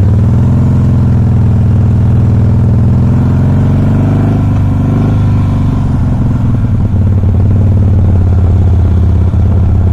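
2007 Harley-Davidson Softail Custom's V-twin engine running just after starting, a little unevenly, with brief stumbles about six to seven seconds in. The bike has been hiccuping and trying to stall: rough running that the owner is treating with Seafoam to clean the fuel injectors.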